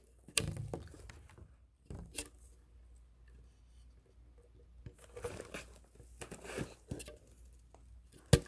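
Irregular rustling and crinkling handling noises with scattered light clicks, a quiet pause in the middle, and one sharp click near the end.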